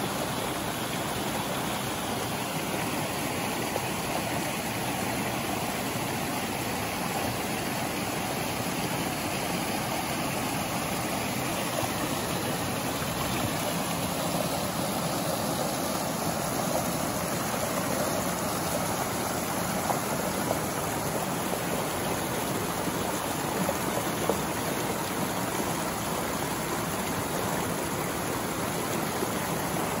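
Small forest waterfall and creek: water rushing and splashing steadily over rocks and fallen logs, filmed close to a little cascade over a rock ledge.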